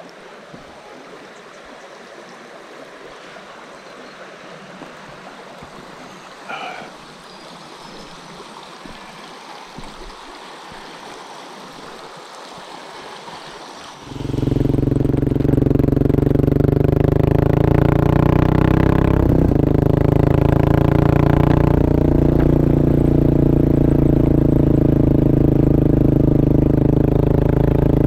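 Running water for the first half, then about halfway through the Kawasaki KLR650's single-cylinder four-stroke engine comes in loud and steady as the bike is ridden, with slight changes of pitch a few seconds later.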